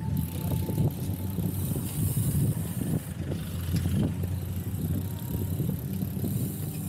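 Wind rumbling over the microphone and tyres rolling on concrete as a road bike is ridden along.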